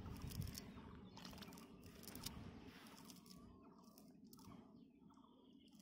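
Faint rustling and crackling of a nylon cast net being pulled and untangled by hand on grass, over a low rumble. The crackles come mostly in the first half, and it grows quieter toward the end.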